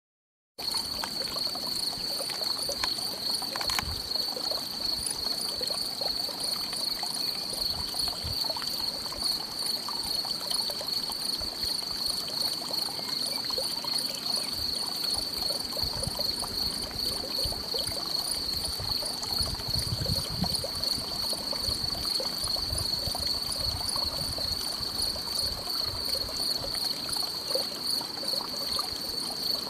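Insects in the meadow grass stridulating in a steady, high-pitched, continuous chorus with a fast pulsing trill.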